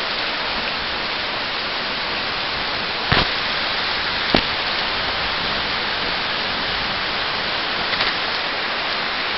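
Steady hiss of heavy rain falling, with two sharp pops about three and four and a half seconds in.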